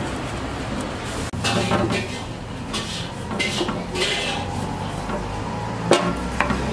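Kitchen knife cutting limes on a wooden chopping block, the blade knocking on the wood in a handful of irregular sharp strokes, over a steady low hum.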